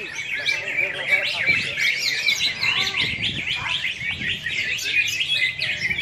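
Many caged greater green leafbirds (cucak hijau) singing at once: a dense, unbroken chorus of quick high-pitched chirps, whistles and warbles overlapping one another.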